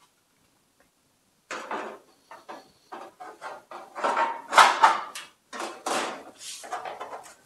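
Sheet-steel cowl panel and its bent brace clanking, rattling and scraping as they are handled and pushed together in a trial fit. The irregular metallic knocks start about a second and a half in and are loudest around the middle.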